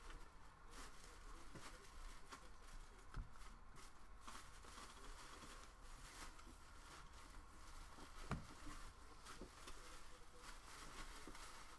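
Faint rustling and soft clicks of stiff baseball trading cards being slid and flipped through by hand, with one sharper tap a little after 8 seconds, over a low steady hum.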